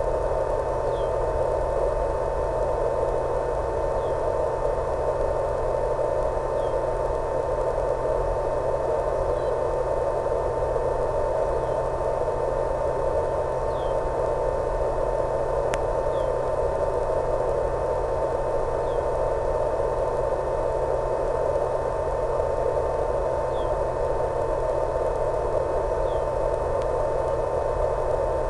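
Steady electronic hiss and hum with a constant high tone and faint short chirps every couple of seconds. It does not change at all while the plane banks and turns.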